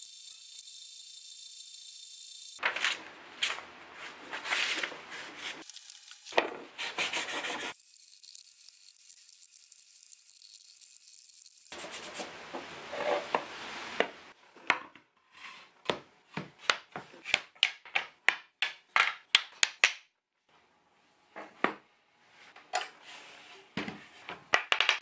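Sandpaper rubbing on wood as a scalloped wooden strip is sanded by hand: stretches of rubbing, then quick back-and-forth strokes about three a second, a short pause, and a few more strokes. A steady high hiss is heard at the start and again between the rubbing passages.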